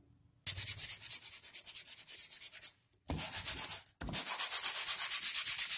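Sandpaper on a hand sanding block scraping over hardened polyester body filler on the edge of a melamine-covered particleboard panel. It goes in rapid back-and-forth strokes, in three runs with two short breaks, to level the dried first coat of filler.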